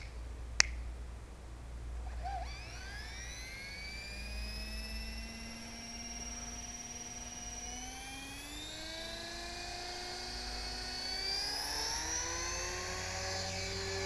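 Electric motor and gears of a 450-size HK-450GT RC helicopter spooling up: a whine that climbs in pitch, stepping higher twice as the rotor speeds up. A sharp click comes about half a second in.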